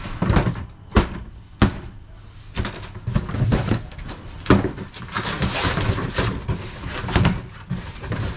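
Cardboard boxes being handled inside an enclosed plywood trailer: a few sharp, hollow knocks as boxes are shifted and set down, then a rustle and scrape of cardboard as a box's flaps are pulled open about halfway through.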